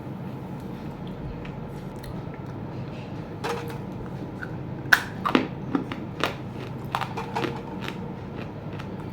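Chunks of roasted clay being bitten and crunched: a series of separate sharp cracks and crunches between about three and a half and seven and a half seconds in, the loudest about five seconds in, over a steady low hum.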